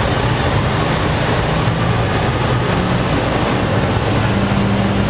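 Semi truck's diesel engine idling, a steady low drone under a constant rush of noise, heard from inside the cab. One tone in the drone steps up slightly about three and a half seconds in.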